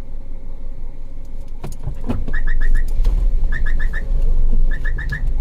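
Low rumble of the vehicle's engine and tyres, louder in the middle as an oncoming car passes. From about two seconds in, a bird calls a quick run of four short notes, three times at roughly one-second intervals.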